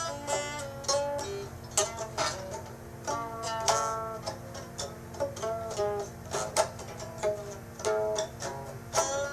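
Music: a plucked string instrument picking a run of short notes that change pitch quickly, each with a sharp attack.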